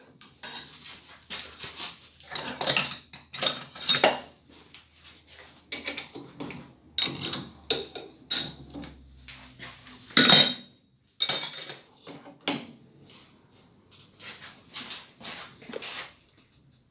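Metal parts and tools clinking and clattering as a workpiece and fixture are unclamped and taken off a hobby metal lathe, with two louder ringing metal clanks about ten and eleven seconds in.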